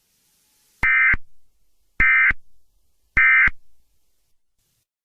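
Emergency Alert System end-of-message signal: three short bursts of SAME digital data tones, about a second apart, marking the close of the alert.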